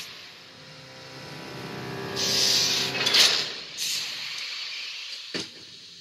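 Animated sci-fi sound effects. A low, many-toned electronic hum swells slowly, with two sharp pneumatic hisses like sliding doors at about two and three seconds in, and a single click near the end.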